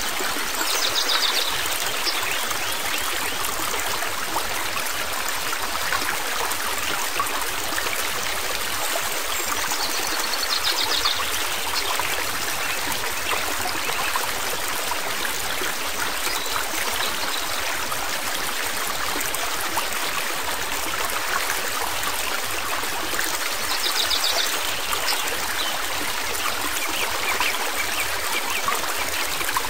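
Steady rushing and babbling of flowing stream water, with a few brief high chirps now and then.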